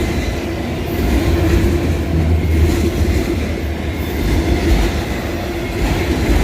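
Autorack freight cars rolling past close by: a steady, loud rumble of steel wheels on rail, with a faint steady hum running through it.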